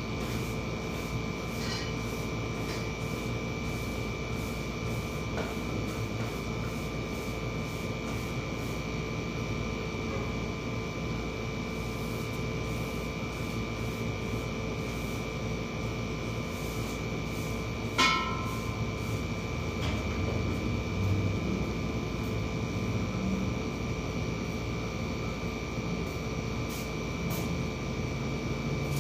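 A steady electrical hum with a thin, constant high whine. About two-thirds of the way through, a single sharp metallic clank rings briefly, with softer low knocks of things being handled after it.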